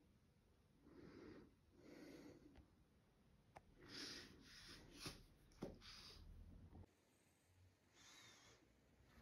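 Near silence: faint room tone with soft rustles and a few small clicks.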